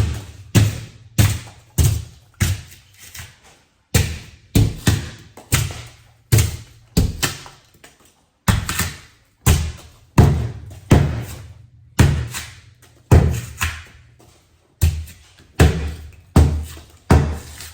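Hammering on a door: a series of heavy knocks about every half second, in runs of six to nine blows with short pauses between, each blow a deep thud with a short ringing tail.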